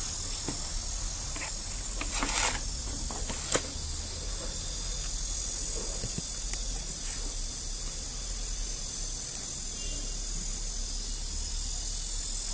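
Steady high-pitched chirring of insects, with a brief rustle about two seconds in and a sharp click soon after.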